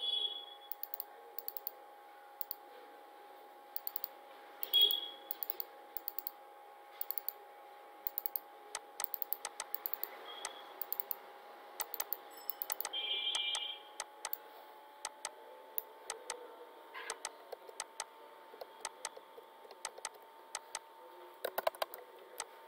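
Computer keyboard typing in irregular runs of clicks over a steady low hum. A few brief high-pitched squeaks come through, the loudest about five seconds in.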